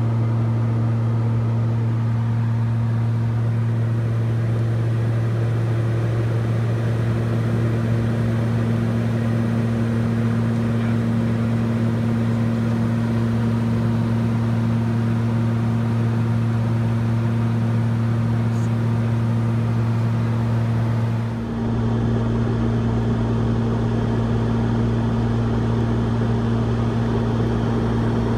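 Steady cockpit drone of a Beechcraft King Air 200's twin PT6A turboprops in cruise flight, a constant low hum over engine and air noise. About three-quarters of the way through the sound dips for a moment, then carries on with a slightly heavier low rumble.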